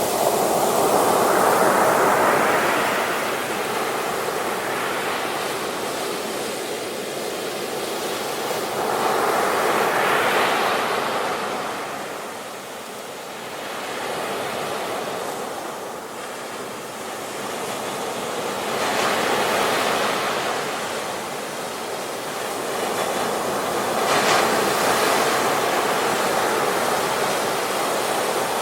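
Sea waves breaking on the shore, each wave swelling into a rushing wash and fading away, about every eight to nine seconds, four in all.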